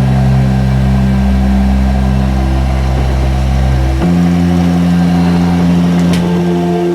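Background music of held, sustained chords that start abruptly and change chord about four seconds in and again near the end.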